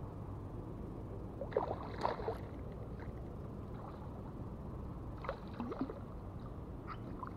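A hooked tarpon splashing and thrashing at the water's surface on light line, in two bouts about a second and a half in and again past the five-second mark, over a steady low background hiss.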